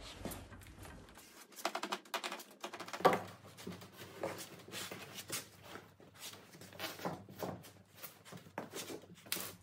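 Red wool upholstery fabric and wadding being ripped and pulled off a chair by hand: an irregular run of tearing, crackling and clicking sounds, with one sharper snap about three seconds in.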